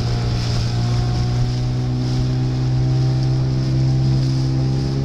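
Small motorboat's engine running steadily under way, a low hum with an even drone of overtones, over a hiss of choppy water and wind.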